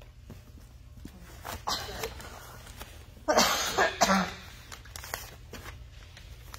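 A person coughing: a short cough about two seconds in, then a louder run of coughs around three and a half to four seconds in.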